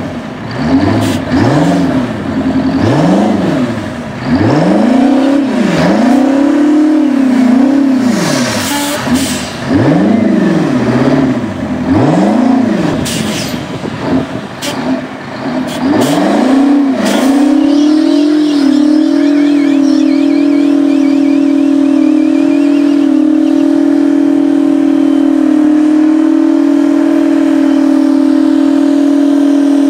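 Twin-turbo V16 engine of a Mack truck revving hard, its pitch rising and falling in repeated blips. About two thirds of the way through it settles into a steady high-rev drone as the rear wheels spin in a smoky burnout.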